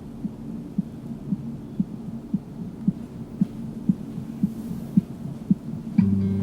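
A hospice patient's heartbeat picked up through a stethoscope pressed to the chest: soft, regular beats about twice a second over a low hum. Guitar music comes in near the end.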